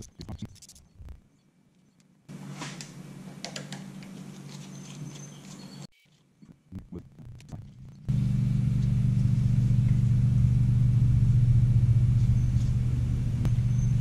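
A loud steady low machine hum that starts abruptly about eight seconds in, after a fainter hum of the same kind earlier. Before it come a few light clicks and taps from hand-tool work on the motorcycle's handlebar controls.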